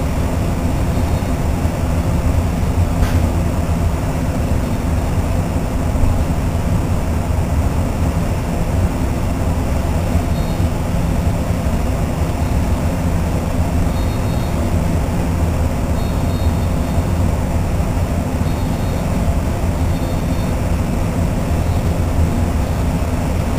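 Steady low rumble of railway station noise as a train approaches from a distance. Faint short high-pitched beeps recur several times in the second half.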